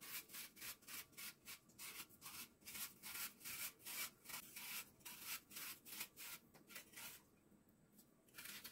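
Apple being peeled by hand: a blade scraping through the skin in quick, faint strokes, about three a second, stopping about seven seconds in.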